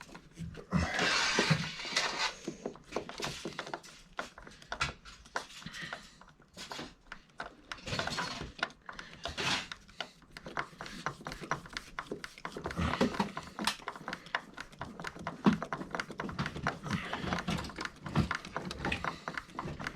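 Handling noise: many short clicks and knocks of tools and small hardware being picked up and moved, with a brief rustle about a second in.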